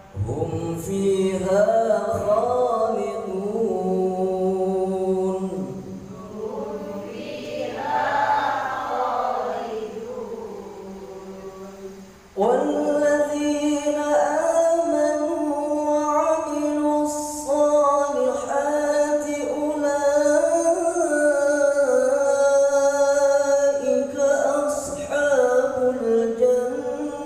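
A man reciting the Qur'an in the melodic tilawah style, one voice holding long drawn-out notes with ornamented pitch turns. The recitation comes in two long phrases; the first fades out, and after a short breath the second starts louder about twelve seconds in.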